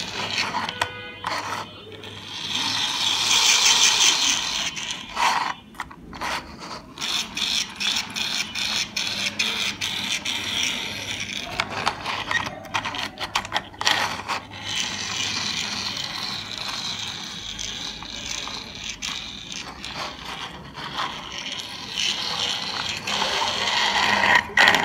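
Small plastic toy elephant car pushed back and forth by hand on a table, its plastic wheels and inner gears whirring and clicking. The whirring comes in stretches, strongest a couple of seconds in and again through the second half, with many sharp clicks.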